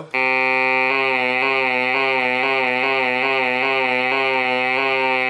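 ARP Pro Soloist synthesizer holding a single sustained note. About a second in, a regular pitch wobble sets in: the vibrato from the key-pressure touch sensor, working again on the newly replaced sensor strip.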